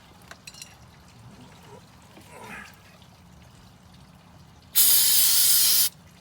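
An aerosol can of brake cleaner sprayed in one loud hissing burst lasting about a second near the end, washing grime off drum brake parts. Before it come a few faint clicks of parts being handled.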